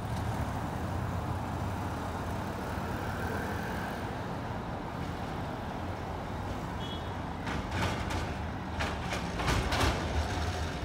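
Steady low rumble of street traffic. From about seven and a half seconds in comes a series of sharp clacks and knocks as an AnsaldoBreda Sirio tram approaches along the rails.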